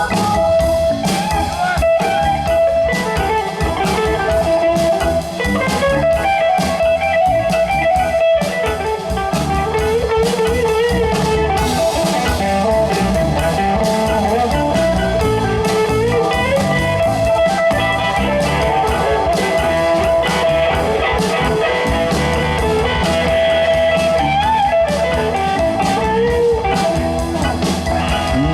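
A live blues-rock band plays an instrumental break: a lead electric guitar solo with bending notes over a drum kit.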